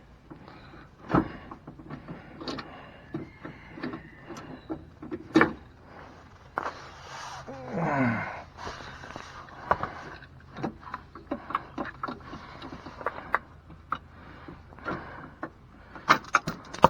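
Irregular metallic clicks and knocks of hand tools and bolts while step rails are fastened to a pickup truck's frame, with a brief sound falling steeply in pitch about eight seconds in.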